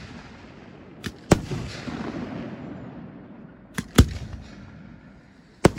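Aerial fireworks of a large display going off in sharp bangs. There is a pair about a second in, another pair about four seconds in, and a single bang near the end. Each loud bang is followed by a fading rumble.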